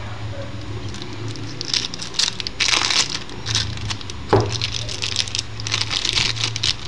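Clear plastic wrapping on a deck of playing cards being crinkled and pulled off by hand, in irregular bursts of crackling that are loudest about three seconds in, with a sharp click a little later.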